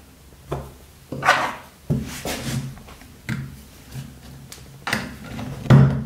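Small metal Victorinox Cadet pocketknife parts being handled and pressed onto the pins of a work board: a string of sharp knocks and scrapes, about seven in six seconds, the loudest near the end.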